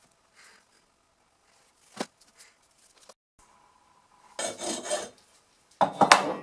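Gritty scraping and rubbing of hands digging into molding sand around a tin can, in two loud bursts near the end, after a single sharp click about two seconds in.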